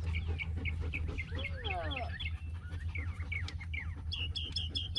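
Chickens clucking: a string of short repeated calls, breaking into a quicker, even run of calls about four seconds in, over a steady low hum.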